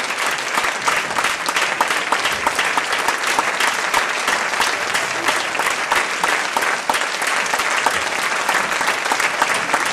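Audience applauding: dense, steady hand-clapping from a large crowd.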